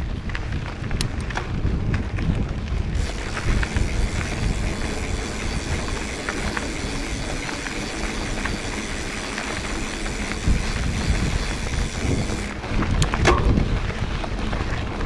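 Wind buffeting the microphone, a heavy jumbled low rumble with scattered clicks and rattles. A steady hiss joins it from about three seconds in and drops away near the end.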